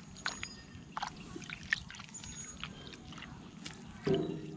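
A hand stirring and pressing in a shallow hole of soapy, foamy water in mud: small wet sloshes and squelches with many quick crackling clicks. About four seconds in comes a brief, louder pitched sound.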